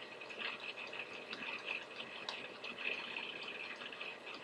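Faint steady hiss with scattered light ticks and scratches from a stylus writing on a drawing tablet.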